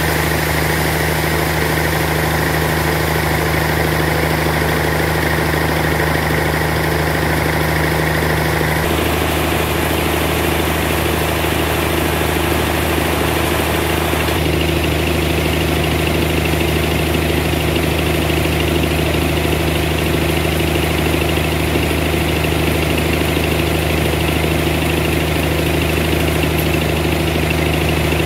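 Band sawmill running steadily with a low mechanical hum. Its higher-pitched sound shifts about nine seconds in and again around fourteen seconds in.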